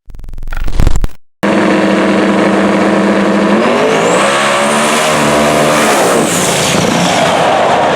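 A short rising sound cuts off about a second in. Then the twin-turbo El Camino's engine runs loud, its revs climbing and wavering in the middle with a rising high whistle before settling again. The engine is misfiring.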